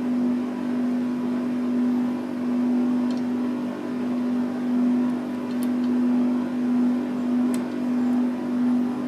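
A steady low hum, slowly swelling and fading, with a few faint, sharp ticks of a lock pick working the pins inside a Marksman 73 mm round padlock.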